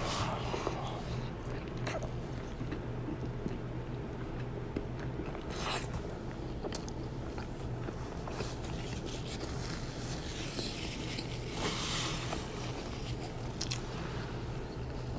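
Someone biting into and chewing crunchy fried tacos close to the microphone, with a few louder crisp crunches among softer chewing. A steady low hum runs underneath.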